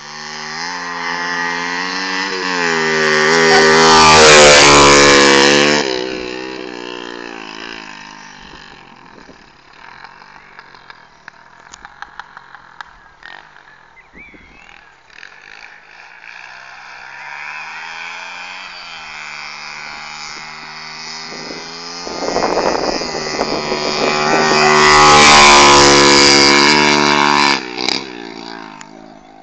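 A 110cc pitbike's single-cylinder four-stroke engine revving with rising and falling pitch. It comes close and grows loud twice, about four seconds in and again near twenty-five seconds, and is fainter in between.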